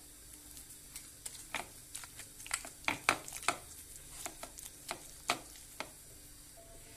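Metal fork clicking and scraping against a ceramic plate in irregular taps, mashing potato in béchamel sauce.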